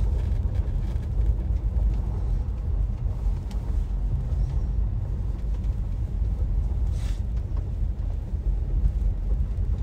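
Steady low rumble of a car driving, heard from inside the cabin, with a brief hiss about seven seconds in.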